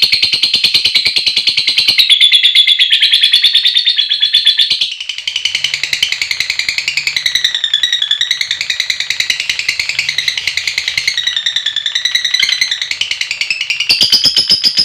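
Lovebird chattering in a long, unbroken, high-pitched rapid trill (the 'ngekek panjang' call), its pitch dipping and rising again in the middle and its rhythm shifting a few times.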